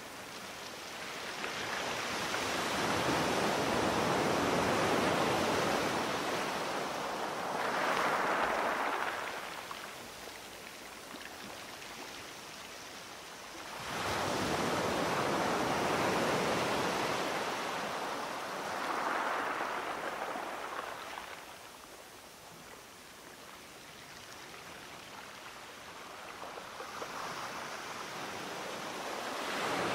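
Ocean surf: waves breaking and washing in, a rushing noise that swells and fades three times about twelve seconds apart.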